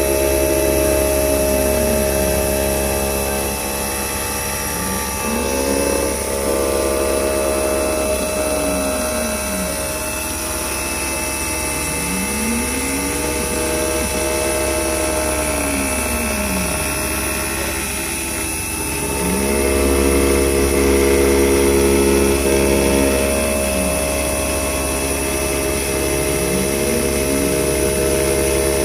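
CNC-controlled Clarke mill/drill machining aluminium connecting rods: the machine runs steadily, with a whine that rises and falls in pitch about every four to five seconds.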